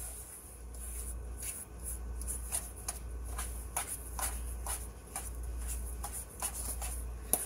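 A fork mashing and stirring softened butter in a stainless steel bowl: irregular scrapes and clicks of the tines against the metal, a few a second.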